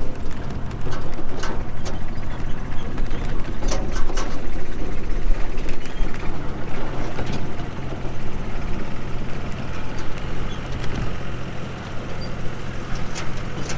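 Vehicle engine running steadily while riding over rough ground, with frequent rattles and knocks.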